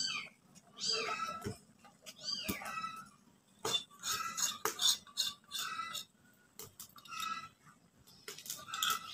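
A metal spatula scraping and clinking in a kadai in short, separate bursts about once a second, as rice-flour paste is stirred into the boiling sour fish curry. A few short cries with a falling pitch are mixed in.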